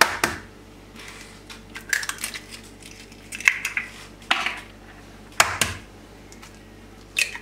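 Eggs cracked against the rim of a ceramic bowl and emptied in one after another: a series of sharp taps and clicks of shell on the bowl.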